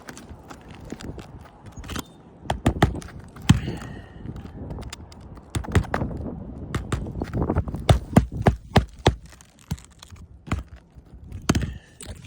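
Irregular sharp knocks from a hammer driving roofing nails into a reinstalled asphalt shingle, in clusters with pauses and rustling in between.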